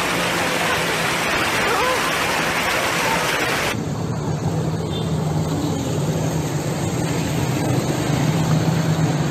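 Loud even rush of floodwater flowing down a street. A sudden cut comes almost four seconds in. After it, a duller water rush under a steady low engine hum that grows stronger near the end.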